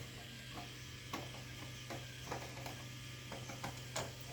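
Faint small metal clicks and ticks of a nut being unscrewed from the amplifier's Bluetooth panel, irregularly spaced, over a steady low hum.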